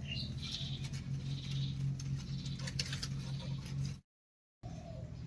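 Quiet outdoor ambience: faint bird chirps in the first second or so and a few light clicks from hands handling greens, over a steady low hum. The sound drops out to silence for about half a second near the end.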